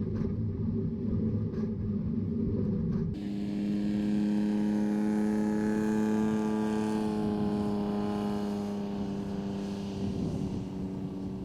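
Tractor-drawn large square baler working in the field: a low rumble with a knock about every second and a half, then, after a cut about three seconds in, a steady engine drone.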